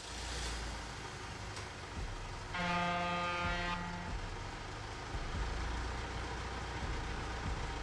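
Semi-truck sound effect: an engine rumbling steadily, with one horn blast about two and a half seconds in that lasts about a second.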